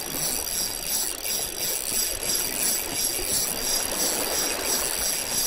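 Spinning reel cranked steadily to retrieve line, its gears giving a whirring with a faint regular pulse a little over once a second.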